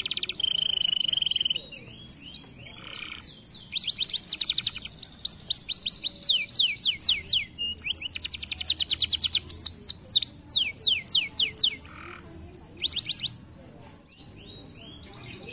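Domestic canary singing. The song opens with a held note, then runs into rapid trills and quick series of downward-sweeping notes, and stops a couple of seconds before the end.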